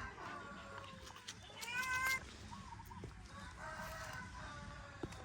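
An animal's pitched calls. The loudest is a short, rising cry about two seconds in.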